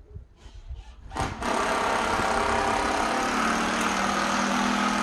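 A small electric motor starts up about a second in and whirs steadily at one even pitch, loud and close.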